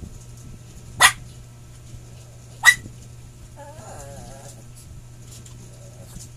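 Shih tzu barking to wake its owner: two short sharp barks about a second and a half apart, then a brief wavering whine.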